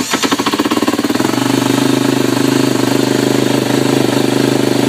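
Fuel-injected single-cylinder four-stroke engine of a 2012 Husqvarna TE250 dirt bike, just caught on a cold start: it runs unevenly for about a second, then settles into a steady idle.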